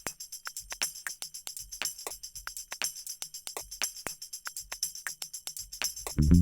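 Background music carried by a tambourine jingling in a quick, steady rhythm.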